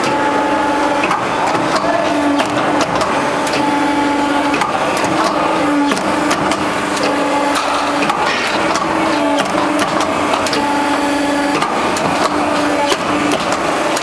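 Metal roofing roll-forming machine running: a steady mechanical clatter from the rollers and drive, with many sharp clicks and a hum that keeps switching on and off.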